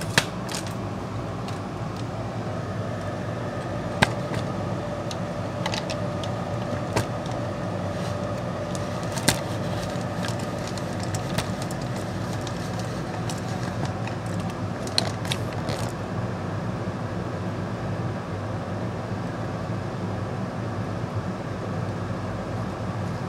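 SMT Max AS-5001 budget benchtop reflow oven running through its reflow cycle: a steady hum with a faint tone in it, and a few sharp clicks scattered throughout.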